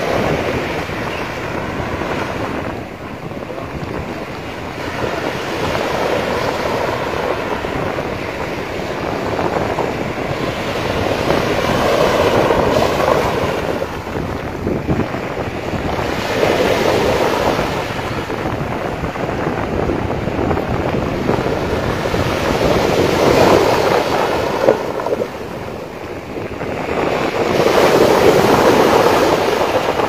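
Small sea waves washing up onto a sandy beach in surges every five or six seconds, with wind buffeting the microphone.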